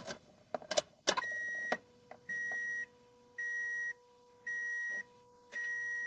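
A car's ignition key clicking as it is turned to on, then the dashboard warning chime beeping five times, each beep about half a second long, at an even pace of about one a second.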